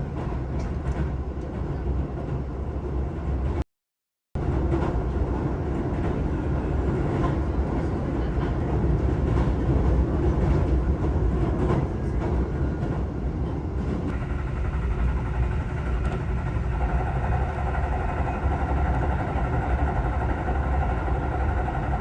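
A moving vehicle's steady low rumble, which cuts out briefly about four seconds in, with some higher pitched hum joining it in the second half.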